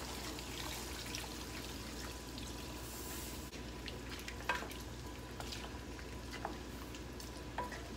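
Water poured into a hot pan of browned pork and chicken, hissing and sizzling for about the first three and a half seconds. Then two wooden spatulas stir the meat, with a few light clicks against the pan.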